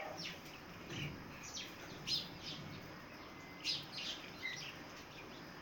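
Chicks peeping: short, high chirps that fall in pitch, coming singly or a few at a time.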